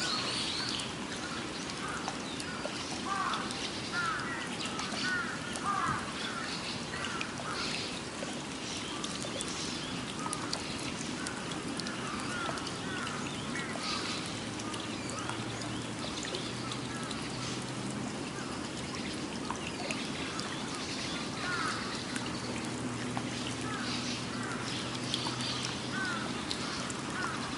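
Rain falling steadily onto a puddle, with small songbirds chirping in short repeated phrases, most often in the first several seconds and again near the end. A low steady hum comes in about halfway through.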